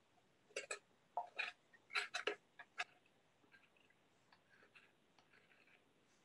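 A bent carving knife cutting into a wooden sculpture: about eight short, sharp cutting strokes in the first three seconds, then only faint ticks.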